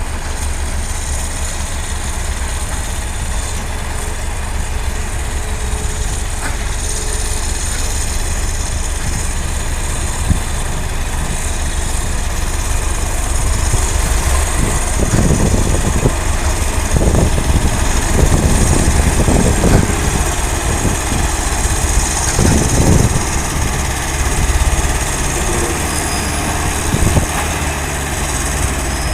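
Heavy diesel construction machinery engine running steadily with a deep rumble. About halfway through, a series of short knocks and thumps comes in over it.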